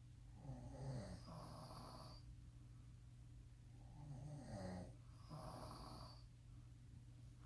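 Snoring: two slow breaths about four seconds apart, each a wavering snore followed by a breathy out-breath.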